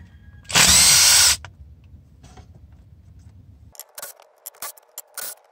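A cordless power drill/driver runs in one short burst of under a second, spinning out a 13mm shifter-to-transmission bolt. A few light metallic clicks and clinks follow near the end.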